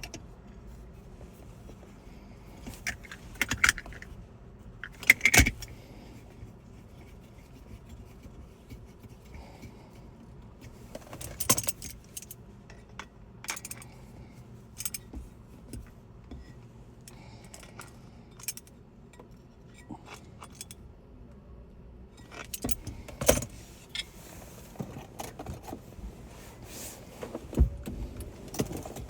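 Small metal repair tools clinking, clicking and tapping, in scattered irregular strikes over a faint steady low hum.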